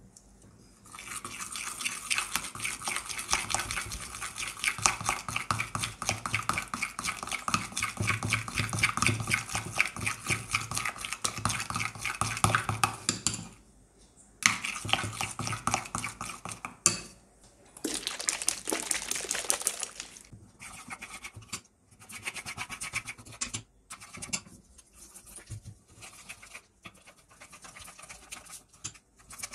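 Plastic spoon stirring a thick white glue-and-toothpaste mixture in a glass bowl: fast, continuous scraping strokes against the glass. It stops briefly about halfway through, then goes on in softer, more broken-up strokes.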